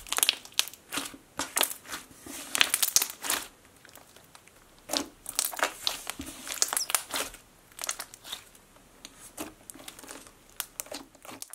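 Hands squishing and stretching a thick, glossy slime with giant foam balls in it, making irregular crunchy clicks and bubble pops.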